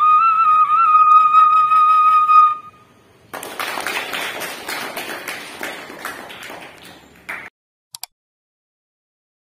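Bamboo transverse flute holding a final wavering note that ends about two and a half seconds in. A moment later a group of people clap for about four seconds, the applause fading away. A single short click comes near the end.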